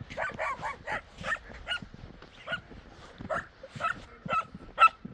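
A dog giving a series of about a dozen short, high yips or barks, quick at first and then spaced about half a second apart.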